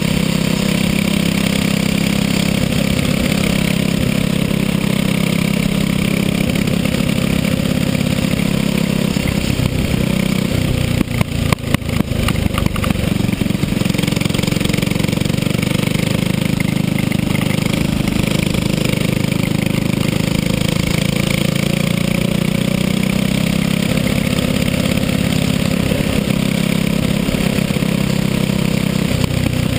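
Go-kart engine running hard under way, heard from on board the kart. About eleven seconds in the engine note drops off and rattles briefly, then it pulls steadily again.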